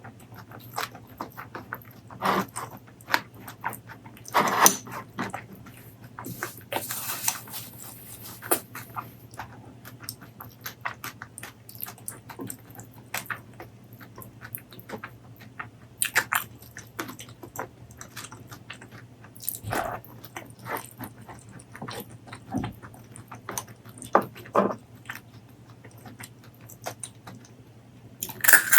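Close-miked eating sounds: irregular wet chewing, lip smacking and mouth clicks, with a few louder bites, over a faint steady low hum.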